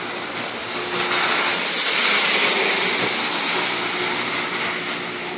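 High-pressure misting nozzles hissing steadily as they spray fine water mist for cooling. A broad rushing noise swells up about a second in and fades back down near the end.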